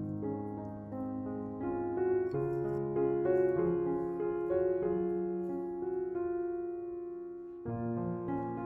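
Background music on piano, gentle and slow, with the chords changing every second or so and a new chord coming in near the end.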